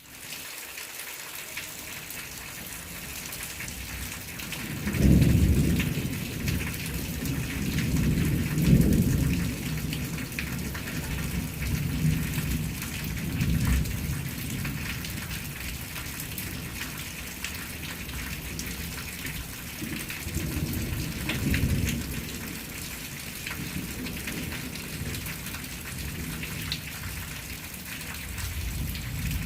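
Steady rain falling, an even hiss of many drops with a patter of scattered individual drop hits. A few low rumbles swell up and fade, the loudest about five and nine seconds in.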